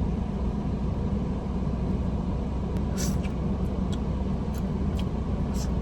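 A steady low rumble, like a running vehicle heard from inside, with a few short clicks over it.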